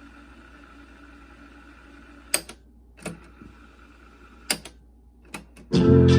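Sony CFD-454 boombox cassette mechanism winding tape with a steady whir, then several sharp clicks of the transport keys being pressed, after which music from the tape starts playing loudly just before the end.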